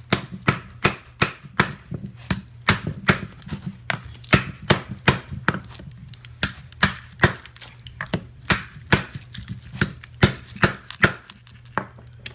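Hammer blows on a heavy-duty transformer, knocking its copper winding loose from the steel core: a steady run of sharp strikes, about two or three a second, that stops shortly before the end.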